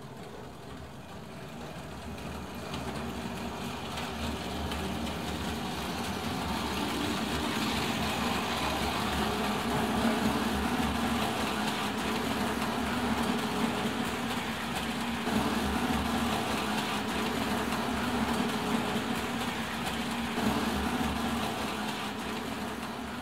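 Hornby Dublo model goods train running on tinplate track, a steady motor hum and wheel clatter. It grows louder over the first several seconds as the train nears, holds, then fades near the end.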